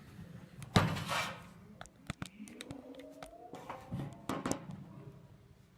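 Several sharp knocks and clanks of metal tools and parts during hub bearing work on the car, the loudest hit about a second in and a second group of hits near the end, with a faint rising tone in between.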